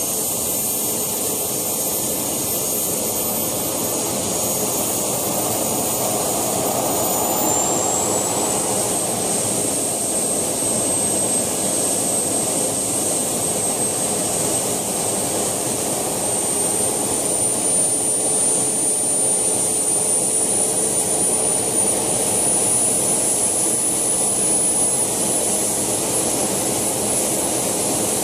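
JetCat PHT2 shaft turbine of a model helicopter running on the ground: a steady rushing hiss with a high whine that steps up in pitch about eight seconds in and then keeps creeping slowly higher as the turbine spools up.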